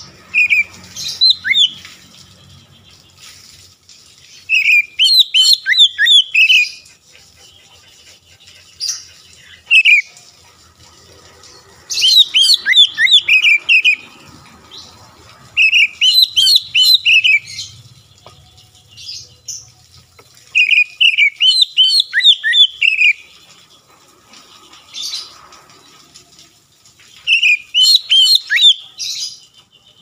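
Caged Oriental magpie-robin singing loudly in short phrases of quick rising and falling notes. Each phrase lasts one to three seconds, and about seven come a few seconds apart.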